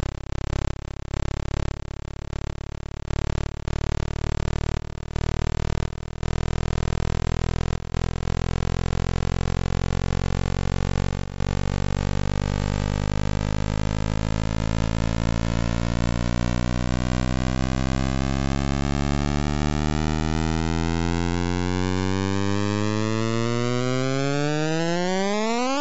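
Radar echoes from Titan's surface, recorded by the Huygens probe during its descent and converted into audible sound. A buzzing tone stutters on and off for the first dozen seconds, then runs steadily while its pitch climbs slowly and sweeps sharply upward near the end as the probe nears the ground.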